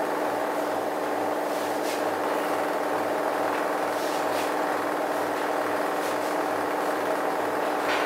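Bosch front-loading washing machine running a rinse cycle: a steady motor hum with a low throb repeating about three times a second as the drum turns, and a few faint ticks.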